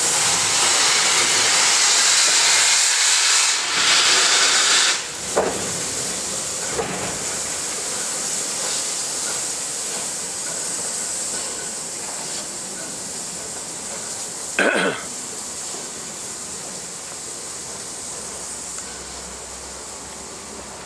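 Steam locomotive Flying Scotsman, an LNER A3 Pacific, hissing steam as it moves off the turntable. The hiss is loud for about the first five seconds, then softer and slowly fading, with a few short puffs.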